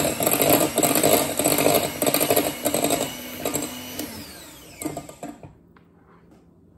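Electric hand mixer beating butter-and-powdered-sugar frosting in a bowl. About four seconds in it is switched off and its whine falls in pitch as it runs down to a stop.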